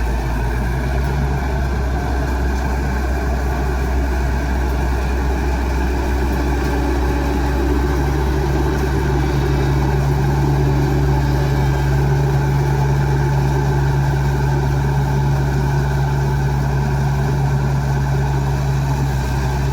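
Rice combine harvester's engine and machinery running steadily at a constant pitch, growing slightly louder about eight seconds in.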